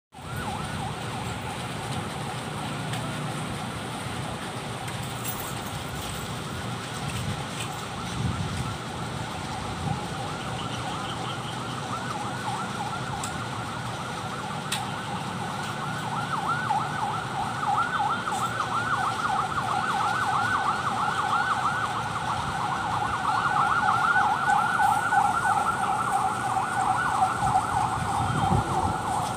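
A siren wailing in a fast, continuous yelp, growing louder in the second half, over a low rumble.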